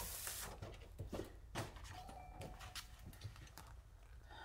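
Faint handling noise from a plastic Cricut cutting mat: a short rustle as it slides over papers at the start, then a few scattered soft taps and clicks.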